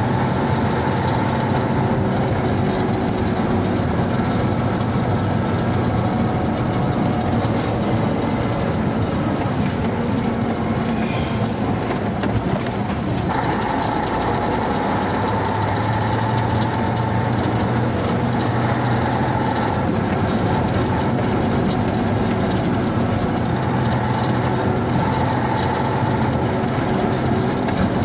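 Steady drone of a vehicle driving on a dirt forest road, heard from inside the cab: engine hum mixed with tyre and road noise.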